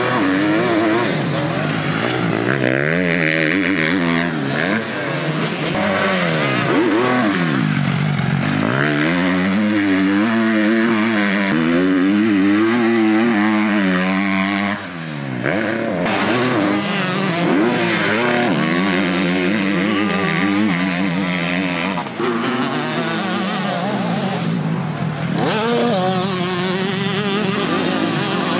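KTM motocross bike engine revving hard, its pitch repeatedly climbing and falling as the rider accelerates, shifts and backs off through turns. The sound breaks off abruptly a couple of times, about halfway and two-thirds of the way through.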